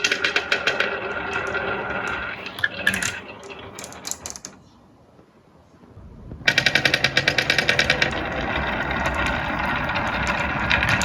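Marbles rolling and clattering down a wooden marble run, a fast even rattle of clicks. It dies away about four and a half seconds in, then a fresh run starts about two seconds later with a louder, denser clatter.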